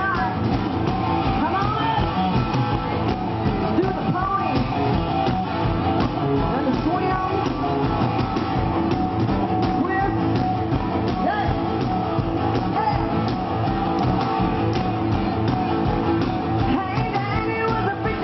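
Live rock and roll band playing: electric guitar, electric bass and drums, with a woman singing lead at points.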